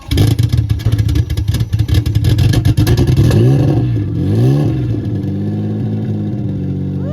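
Turbocharged Mazda MX-6 engine on E85 fuel catching on a cold start. It fires roughly and loudly at first, is blipped up and down twice with the throttle to keep it alive, then settles into a steady idle. E85 engines are reluctant to cold start.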